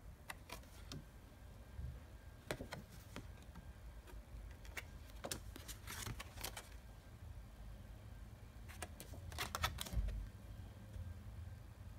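Cardstock recipe cards being handled and shuffled by hand: scattered short rustles and light taps in small clusters, over faint low room hum.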